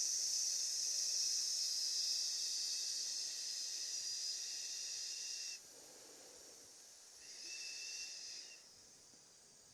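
A person breathing out a long, steady "sss" hiss through the teeth, the lung sound of the Taoist Six Healing Sounds. It lasts about five and a half seconds, and a second, shorter hiss follows about two seconds later.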